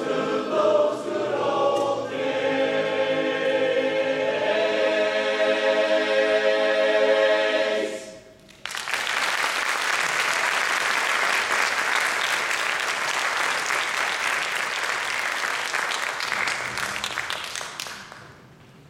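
Men's chorus singing in harmony, ending on a long held chord that cuts off about eight seconds in. Audience applause follows straight after and fades away near the end.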